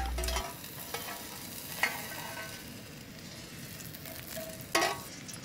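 Oil heating in a small pan on a gas canister camp stove, sizzling with a steady hiss, getting hot for searing a steak. A light knock about two seconds in and a louder knock near the end as the pan is handled.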